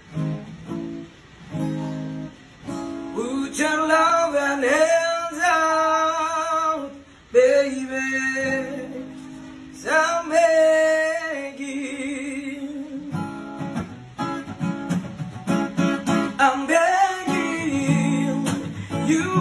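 Acoustic guitar strummed and picked while a voice sings a melody over it.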